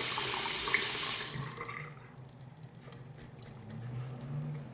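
Tap water running into a sink, then turned off about a second and a half in.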